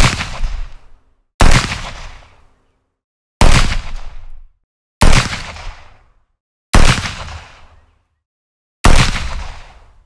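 Revolver shots: six single shots, about one and a half to two seconds apart. Each sharp crack is followed by an echoing tail that dies away within about a second.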